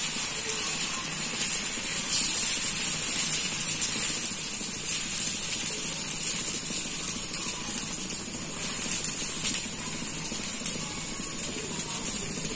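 Dosa batter sizzling in a steady hiss on a hot, oiled iron tawa as it is spread out in circles with a steel spoon.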